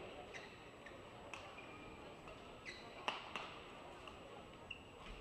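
Badminton rally: a series of sharp racket strikes on the shuttlecock, the loudest about three seconds in, with short squeaks of court shoes on the mat between them.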